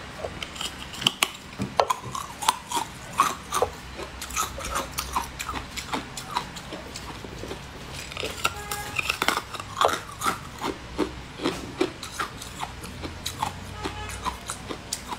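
A person biting and chewing a large green candy, close to the microphone: many irregular sharp clicks of bites and mouth sounds, over faint background music.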